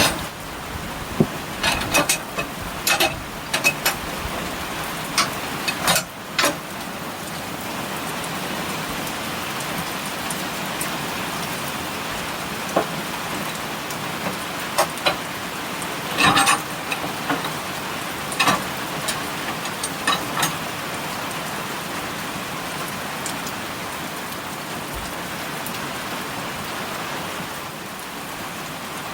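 Steady rain falling on surfaces, with scattered sharp taps and knocks bunched near the start and again past the middle.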